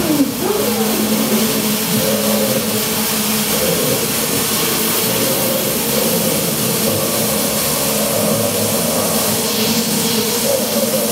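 Improvised electronic drone from a keyboard synthesizer and effects pedals: a dense, steady wash of noise over a held low hum, with wavering tones drifting above it that grow stronger near the end.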